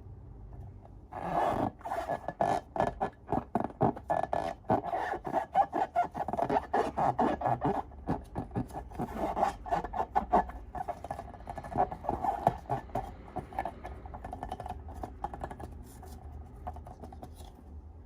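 Slime being squished and stirred by hand: a dense run of wet, sticky clicks and crackles that starts about a second in and thins out near the end.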